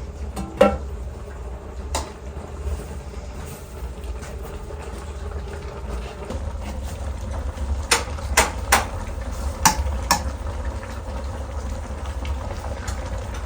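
Sheep meat cooking in a pot over an open fire: a steady low rumble and bubbling hiss, with a handful of sharp metal clinks from utensils against the pot, several of them close together about two thirds of the way through.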